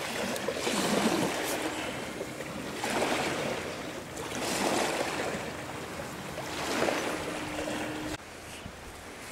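Small waves washing onto a stony shore, swelling and ebbing about every two seconds, dropping quieter about eight seconds in.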